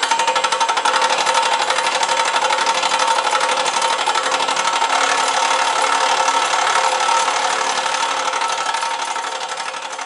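Nitech CableX electric copper-cable stripper running with wire fed through it: a fast, even mechanical rattle over a steady motor whine. It fades out near the end.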